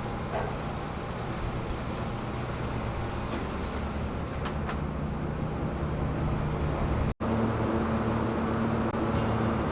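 Steady engine drone of a vehicle heard from on board, with a few faint clicks; about seven seconds in it cuts abruptly to a different steady drone with a stronger low hum.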